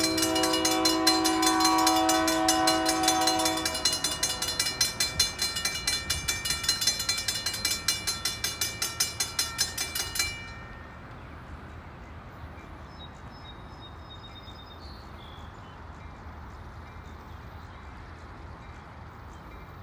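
Railroad grade-crossing bell ringing rapidly with the flashing lights, while a locomotive horn sounds a steady chord for about the first four seconds. The bell cuts off suddenly about ten seconds in, once the crossing gates are down, leaving only a faint low steady rumble.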